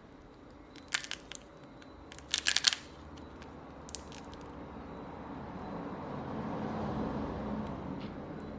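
Small sharp clicks and taps of phone parts and tools being handled: one about a second in, a quick cluster of several around two and a half seconds, and another near four seconds. After that a low rumbling noise swells up and eases off near the end.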